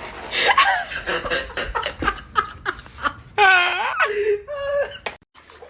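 A person laughing hard: breathy bursts of laughter, then higher-pitched giggling, cut off suddenly about five seconds in.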